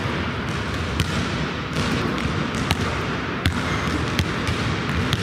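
Basketball bouncing on a hardwood gym floor: sharp single bounces at uneven intervals, roughly one a second, over a steady hiss.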